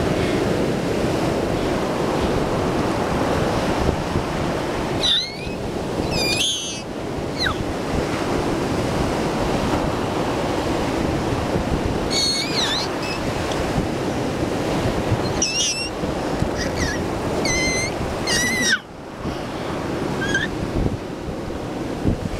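Ocean surf washing up a sandy beach, a steady rushing wash of breaking waves. Several short high-pitched squeals come through it at intervals.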